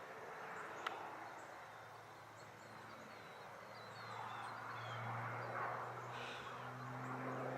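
Faint steady drone of a distant airplane, growing louder from about halfway through, with birds chirping in the middle and a single click about a second in.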